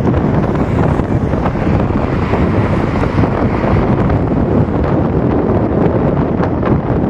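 Strong gusty wind buffeting the microphone, a loud, steady rush with no clear tone in it.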